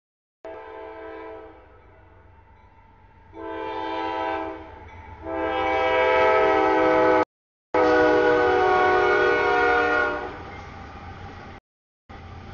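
Air horn of an approaching CSX diesel freight locomotive sounding for a grade crossing: a fading blast, a pause, a blast of about a second and a half, then a long, loudest blast held about five seconds, over the low rumble of the train. Near the end the horn stops and the rumble of the passing train remains. The sound cuts out briefly three times.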